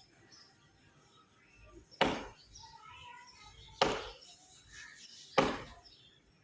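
Axe chopping into wood: three sharp strikes, evenly spaced a little under two seconds apart.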